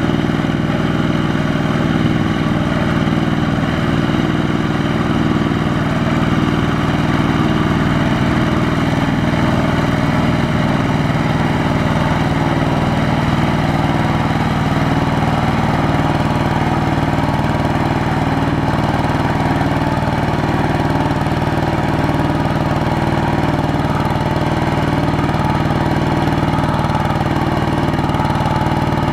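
Single-cylinder diesel engine of a two-wheel walking tractor running steadily at an even speed while the tractor drives a loaded trailer through deep, sticky paddy mud.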